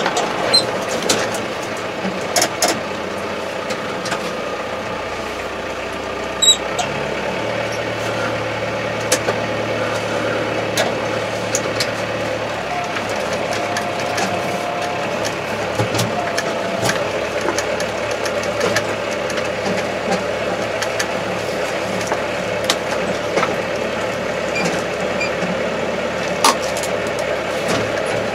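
Kubota MZ755 tractor's diesel engine running steadily while the tractor drives, heard from inside the closed cab, with frequent small clicks and rattles.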